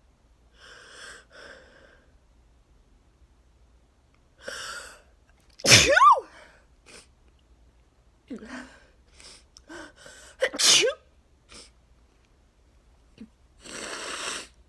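A person sneezing twice, about five seconds apart, the first the louder, with short noisy breaths and sniffs around them. It is an allergic sneeze fit set off by freshly cut grass.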